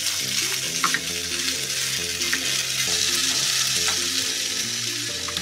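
Penne pasta with vegetables sizzling steadily in a hot frying pan as it is stirred with a silicone spatula.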